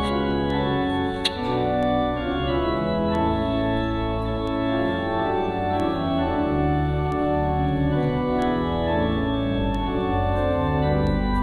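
Church organ playing sustained chords over a deep bass line: the introduction to the closing hymn.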